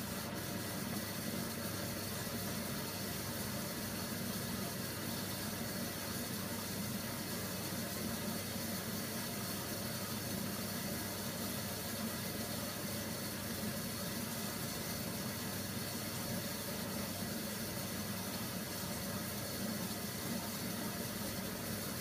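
Hoover Nextra front-loading washing machine with a wet duvet in the drum, running a steady watery hiss with a low hum as water moves through the machine.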